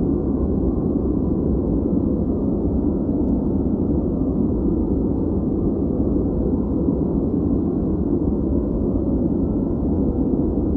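Steady, unbroken white-noise track shaped dark and deep: a muffled rushing sound with its weight low and no hiss on top, holding an even level without change.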